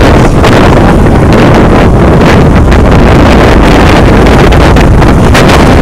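Strong wind buffeting the microphone on an open boat deck: a loud, steady rumbling roar that hides almost everything else.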